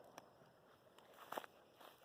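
Near silence, with a faint tick near the start and a couple of soft rustles about a second and a half in.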